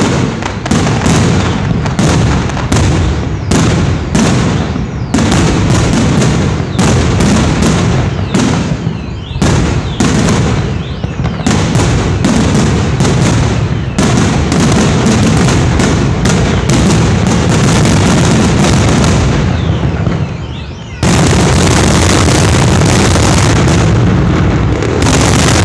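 Fireworks display: aerial shells bursting in a rapid, continuous barrage of loud bangs, several a second. About 20 seconds in it dips briefly, then breaks into an even denser, unbroken final salvo.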